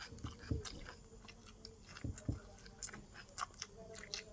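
Close-up eating sounds: a person chewing, with scattered small mouth clicks and smacks and a few soft low thumps, at an uneven pace.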